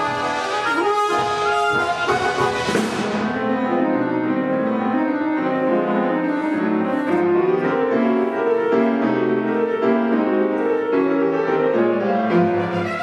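Symphony orchestra and piano playing classical music. A bright, full chord with a high shimmer dies away about three seconds in, followed by sustained chords in the strings and winds.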